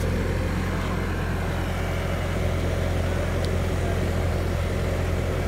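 Bobcat skid-steer loader's diesel engine running at a steady speed, a constant low drone with no revving.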